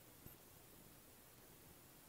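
Near silence: faint room tone with one soft click about a quarter second in.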